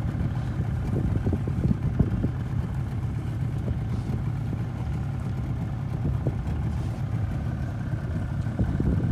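Small boat's outboard motor idling with a steady low hum.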